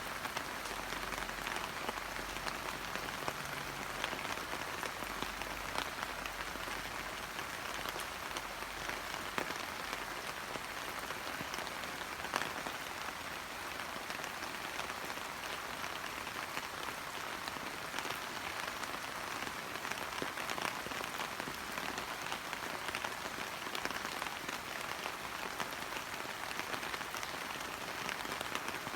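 Steady rain pattering on leaves and surfaces, with many close individual drops ticking.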